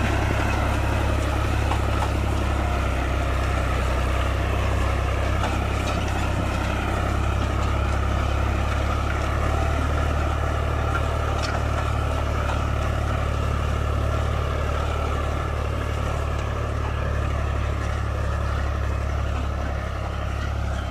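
Ghazi tractor's diesel engine running steadily under load while it pulls a mounted disk harrow through the soil.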